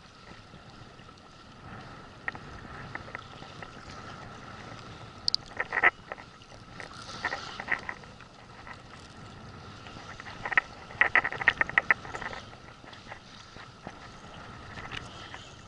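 Fishing reel's drag clicking in short rapid bursts as a hooked fish takes line against the tightened drag. A burst comes about six seconds in, another a second or so later, and a longer run near the twelve-second mark, over steady wind and water noise.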